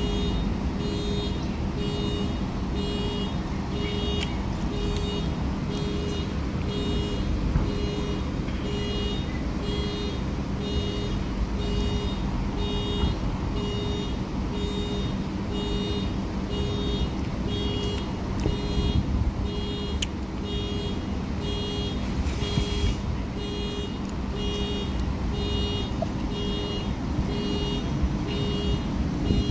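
An electronic beep repeating a little faster than once a second, each beep a low tone with higher ones over it, stopping near the end, over a steady rumble of road traffic.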